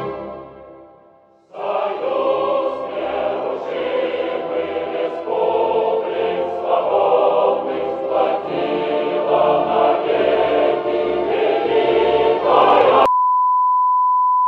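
Choral music with a choir singing over accompaniment, starting about a second and a half in after a short fade to quiet. Near the end it cuts off abruptly into a steady, high test-card beep.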